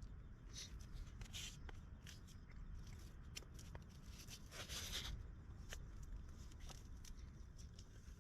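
Faint scattered rustles and small clicks over a low steady rumble, with one longer, louder rustle about five seconds in.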